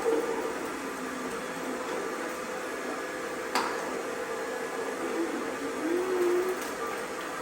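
Small cheap robot vacuums running with a steady motor whir and a constant hum. A single sharp click about three and a half seconds in.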